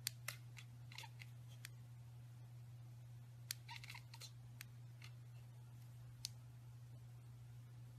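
Near silence: a faint steady low hum with a few soft, scattered clicks.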